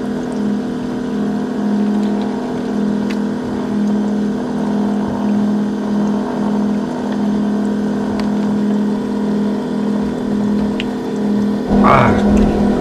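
A small engine or motor running steadily, a low, even hum with a slight pulsing. Near the end a brief louder burst of sound cuts across it.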